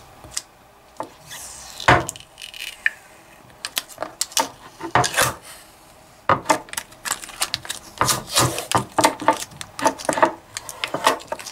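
Foil seal sticker being peeled off the metal cover of a Maxtor hard drive by hand, giving irregular crinkling and crackling with many sharp clicks and ticks.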